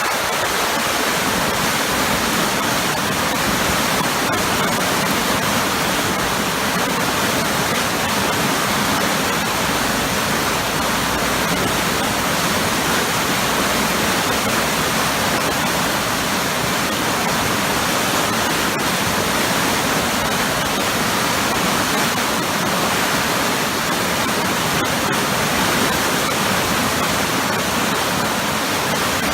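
Powerful waterfall with heavily churning water, a loud, steady rushing noise.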